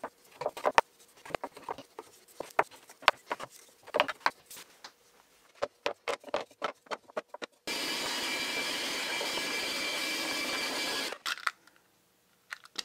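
Cut MDF pieces clacking and knocking as they are pried out of the sheet with a flat blade and handled into a plastic tub. A little past halfway, a vacuum cleaner starts abruptly, runs steadily with a faint whine for about three and a half seconds, and cuts off just as abruptly.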